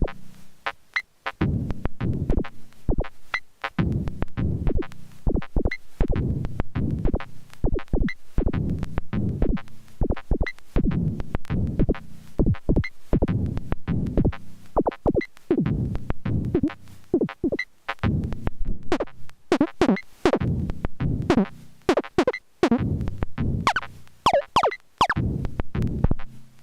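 Erica Synths Perkons HD-01 drum synthesizer playing a looping electronic drum pattern: dense low drum hits with a short high blip recurring about every two and a half seconds, and a few falling pitch sweeps near the end.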